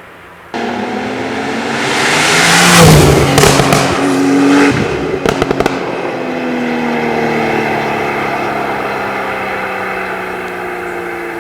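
TECHART GTstreet R Flyweight's twin-turbo flat-six accelerating hard, its note rising to a loud peak, then cut off near the middle by a quick run of sharp crackles. After that the engine note falls steadily as the car slows.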